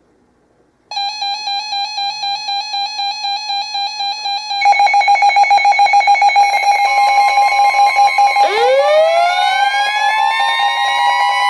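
Electronic alert alarm tones: rapid pulsing beeps start about a second in and get louder with more tones stacked in about halfway. A steady tone joins, then near the end a siren-like tone sweeps up and levels off. They sound in the break before a weather radio warning is read.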